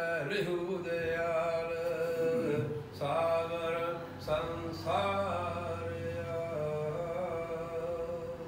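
Gurbani chanted in a slow melodic line, long held notes broken by brief pauses.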